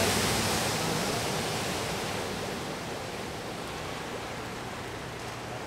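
An SUV driving through floodwater, its tyres throwing up a loud rushing spray that fades over the first two or three seconds as it moves away, leaving a steady, quieter rush of noise.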